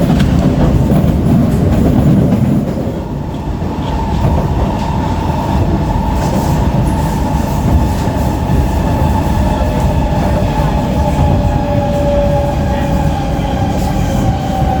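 Inside an SMRT C151B metro train: low wheel-and-track rumble under several steady whining tones that slowly fall in pitch as the train slows under braking. This is the braking whine the title calls weird.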